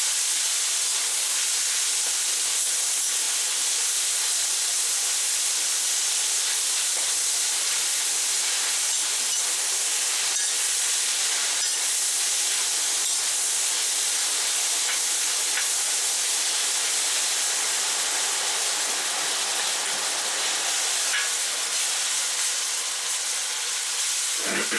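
Thin-sliced pork sizzling in hot oil in a wok, a steady even hiss of meat frying fast at high heat as it browns.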